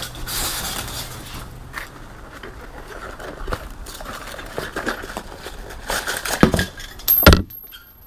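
Handling noise as a propane gas regulator and hose are lifted out of a cardboard box: packaging rustling and light metallic clinks, with a sharp knock about seven seconds in.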